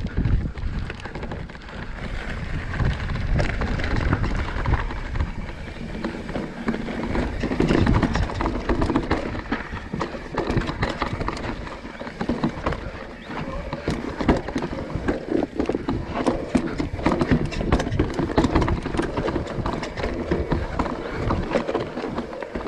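Enduro mountain bike rattling and clattering as it descends a steep, rocky trail at speed: rapid irregular knocks from the tyres, chain and suspension hitting over rocks, over a steady low rumble of riding wind on the microphone.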